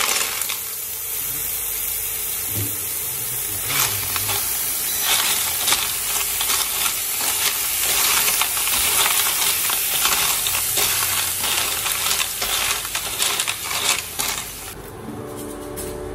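Boiled sea snails in their shells being stir-fried in hot oil with seasonings: steady sizzling with frequent clicks of shells and spatula against the pan. The sizzle drops away about fifteen seconds in.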